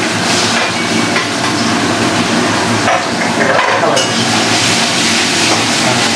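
Chopped onions sizzling as they fry in hot oil in a metal wok, stirred with a spatula that knocks and scrapes against the pan a few times.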